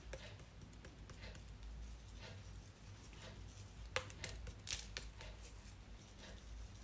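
Faint kitchen handling: scattered light clicks and taps over a low room hum, with a sharper click about four seconds in and another near five.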